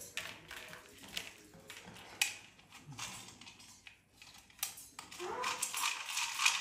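Sulphur-crested cockatoo picking at and cracking dried corn kernels in its beak: a string of short, sharp clicks and crunches, with kernels knocking on the tabletop.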